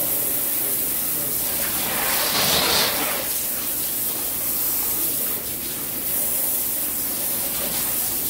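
Water running and spraying with a steady hiss. It grows louder for about a second, about two seconds in.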